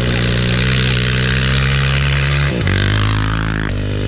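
Racing snowmobiles running hard at high revs on an ice track, a steady engine note over the rush of the tracks. The pitch drops suddenly about two and a half seconds in, then climbs back near the end.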